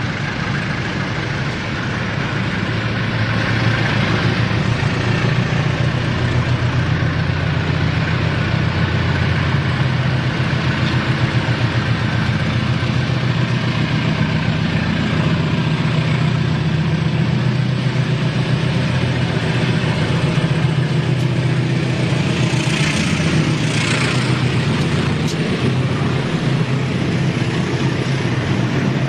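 Large diesel engine, most likely a diesel locomotive's, running steadily at low revs as a deep, even hum, over a steady hiss.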